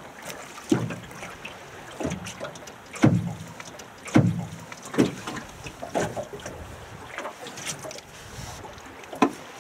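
Small waves slapping against the hull of a small boat, a hollow slap about once a second, each dropping quickly in pitch, over a low steady wash of water and wind.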